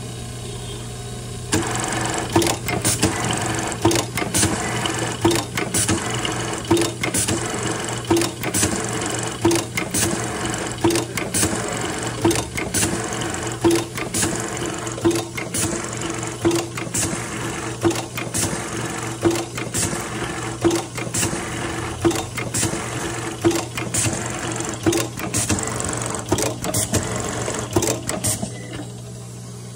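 Electronic button-sewing machine with an automatic button feeder running a sewing cycle: rapid needle stitching and clicking, with a louder clack recurring about every second and a half. It starts about a second and a half in and stops shortly before the end, leaving a steady motor hum.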